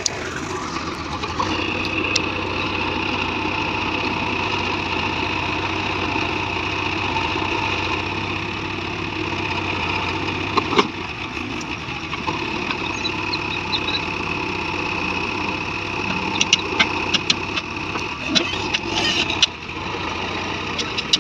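JCB 3DX backhoe loader's diesel engine running steadily under load, with a steady high whine. One sharp knock comes about halfway through, and a run of sharp clicks and knocks comes near the end.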